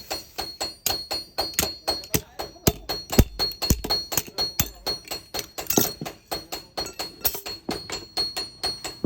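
Background music with a fast, even beat of sharp knocks, about four or five a second, and a few heavier low thuds about three to five seconds in.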